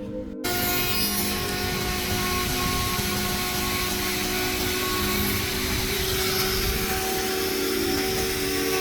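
A woodworking power tool running steadily with a loud hiss and a few held tones, cutting in suddenly about half a second in.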